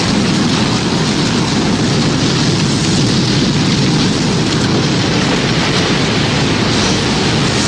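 Tornado sound effect: a steady, dense rumble of wind and rain, heaviest in the low end. No siren is heard.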